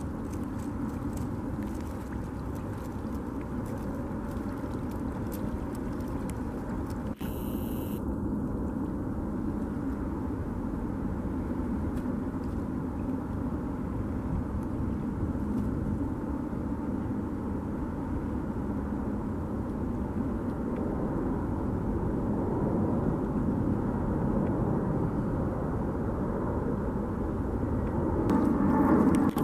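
Steady low outdoor rumble, even and unbroken, with no duck calls or other distinct sounds standing out.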